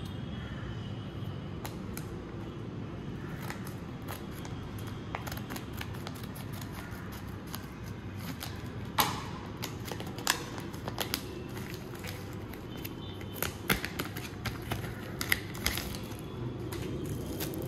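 A trading card pack being opened by hand, with sharp irregular clicks and crackles of the wrapper from about halfway in, over a steady low hum.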